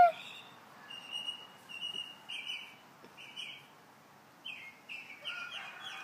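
Birds chirping faintly: a series of short, high calls, with a brief lull about four seconds in.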